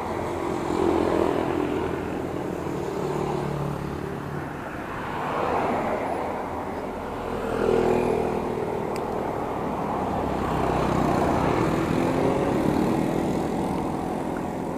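Road traffic passing a cyclist: a car and then motorcycles go by one after another, their engine hum swelling and fading over a steady rush of noise. The loudest pass is about halfway through.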